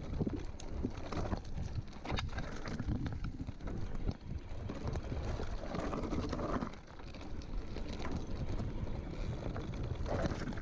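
Mountain bike riding over loose stones on a rocky trail. Wind buffets the microphone over a steady rumble of the tyres on the rocks, with a few sharp knocks and rattles from the bike over bumps.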